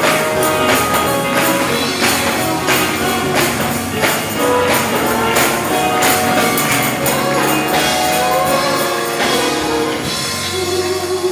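Instrumental gospel music with hand clapping on a steady beat, about two claps a second. About ten seconds in the beat stops and a held chord rings on as the music begins to fade.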